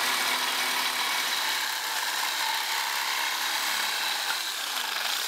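Reciprocating saw cutting through a metal railing post, running steadily with a high whine over the rasp of the blade.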